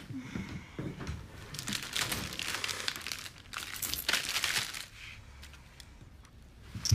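A plastic biscuit packet crinkling and rustling as it is handled and opened, in two long stretches between about a second and a half and five seconds in.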